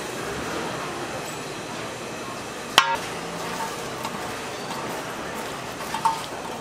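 Two spatulas scraping and knocking against a large flat iron pan as sauced fried pork pieces are tossed, over a steady hiss. A sharp clack about three seconds in, with a brief ring, is the loudest sound, and a smaller ringing knock comes near the end.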